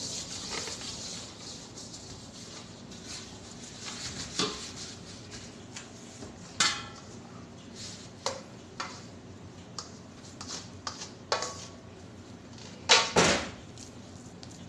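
Stainless steel mixing bowls knocking and clanking against each other and the steel worktable in scattered strikes, some with a short metallic ring. The loudest is a double clank near the end. Bread dough is being tipped from one bowl into an oiled bowl.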